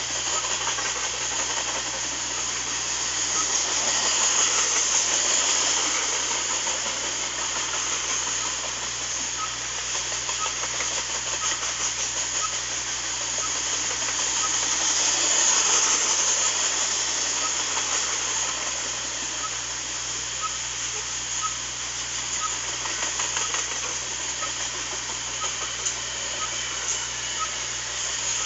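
Loaded coal train's hopper cars rolling past on steel wheels: a steady rumbling hiss of wheels on rail that swells and eases a little, with faint light ticks about once a second.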